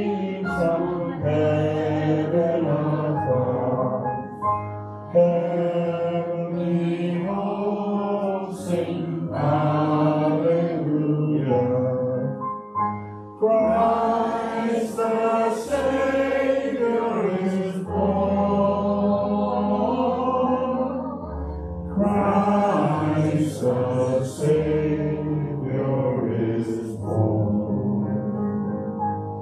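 A hymn sung to instrumental accompaniment: long held notes in sung phrases over a steady bass line, with brief breaks between phrases.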